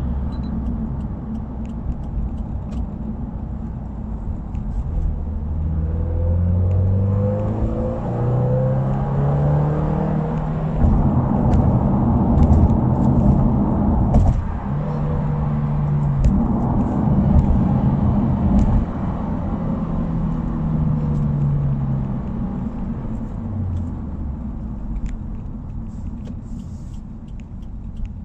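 Subaru WRX engine and exhaust under acceleration, the note rising in pitch through the gears with a clear break at a gear change about fourteen seconds in, then falling away as the car slows near the end, over steady road rumble.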